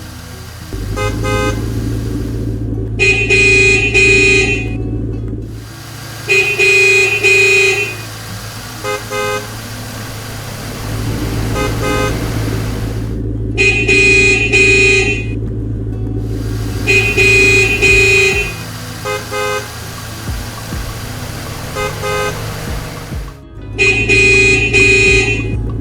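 Cartoon soundtrack: background music with repeated car-horn honks, several long honks of about two seconds each and short toots between them.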